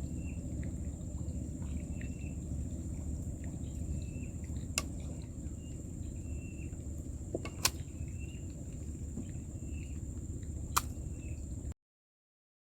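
Open-air ambience of insects: a steady high-pitched drone and short chirps repeating about once a second, over a low rumble. Three sharp clicks come a few seconds apart. About a second before the end the sound cuts out completely.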